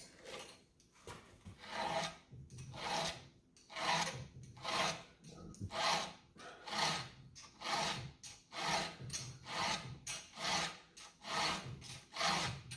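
Round hand file rasping across chainsaw chain cutters in steady, even strokes, a little faster than one a second. The chain is being sharpened after it dulled in dirt.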